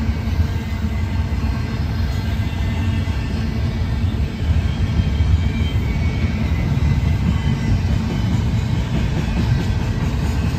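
Double-stack intermodal freight cars rolling past, a steady low rumble of steel wheels on rail.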